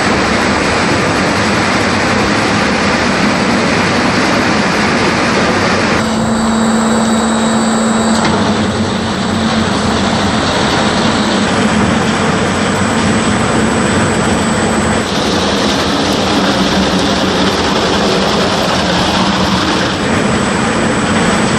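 Heavy wood-processing machinery running loudly: a dense, steady mechanical noise over a low hum, changing character a few times.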